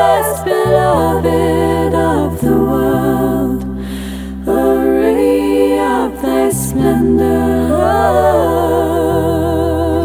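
Two women singing a devotional song in harmony, with long held notes and vibrato over a steady low accompaniment. The voices drop away for a moment about four seconds in, then return.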